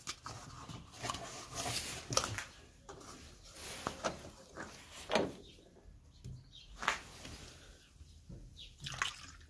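Scattered small knocks and rustles of hands handling a plastic funnel and wiping it with a cloth rag.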